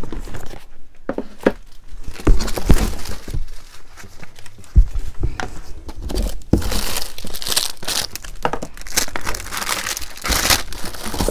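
Packaging being rummaged through and handled: crinkling and rustling, broken by a few short knocks and thumps against a cardboard box.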